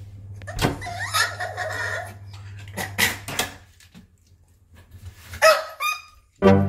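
Pekingese crying loudly and yelping at being left behind: short high whines in the first two seconds, a couple of sharp yelps about three seconds in, and a last rising whine near the end. Music starts right at the close.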